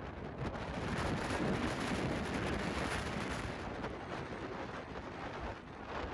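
Strong wind buffeting the microphone as a steady, rumbling noise, with heavy surf behind it. The noise swells a little about a second in and eases after about three and a half seconds.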